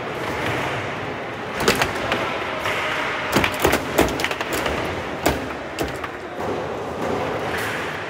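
Foosball game in play: the ball is struck and the rods and plastic men clack and knock sharply at irregular intervals, over a steady background murmur.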